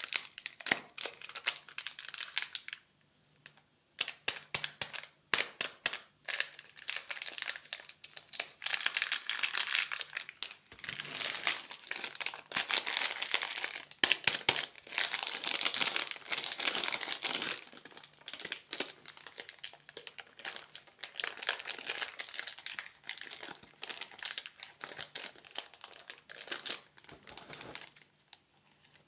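Candy wrappers crinkling as candy is unwrapped by hand, in dense irregular crackles with a short lull about three seconds in.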